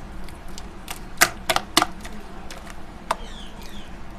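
Thick gram-flour batter being mixed by hand in a glass bowl, with a few sharp clicks of the hand knocking against the glass: three close together about a second in and one more about three seconds in.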